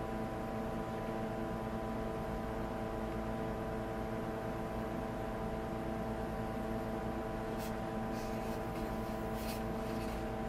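Steady electric motor hum of workshop machinery, made of several fixed tones at an even level. In the last few seconds come a few short scratches of a pencil on the maple vase.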